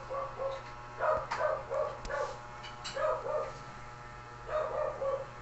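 A dog barking in short, repeated yips, in clusters of two or three about every second or two.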